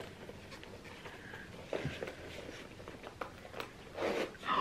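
Faint handling noise from a tightly packed Louis Vuitton Nano Speedy: small clicks and scrapes of its canvas and contents as it is squeezed and zipped closed, with a louder scrape about four seconds in and a short rasp at the very end.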